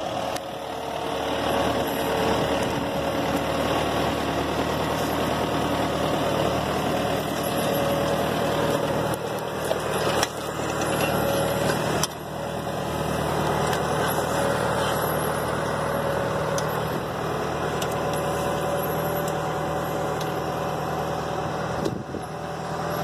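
Kubota M8540 Narrow tractor's diesel engine running steadily, pulling a row cultivator through vineyard soil.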